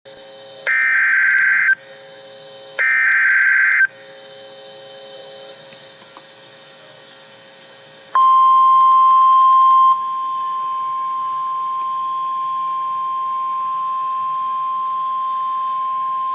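Emergency Alert System broadcast: two bursts of screeching digital SAME header data about two seconds apart, then, about eight seconds in, the single steady 1050 Hz NOAA Weather Radio alert tone, which steps down in level after about two seconds and holds on.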